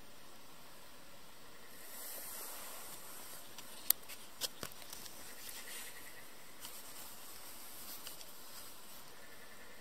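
Wild bighorn sheep moving about some 30–40 feet away, heard as a few sharp clicks around four seconds in and scattered softer ones later, over a faint steady hiss. There is a brief rustle about two seconds in.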